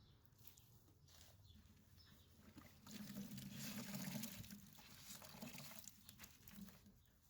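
Soapy water poured over a freshly plugged car tire to check the repair for leaks: faint pattering and splashing, loudest from about three seconds in until six and a half.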